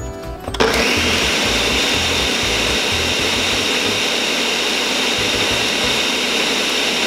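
Countertop blender starts about half a second in and runs steadily, mixing food colouring through an already blended icy slush.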